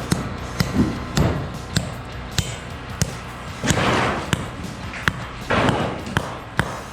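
Repeated sharp knocks, roughly two a second, from work on a part of the sawmill frame being driven into place, with two short scraping rushes, one about four seconds in and one near six seconds.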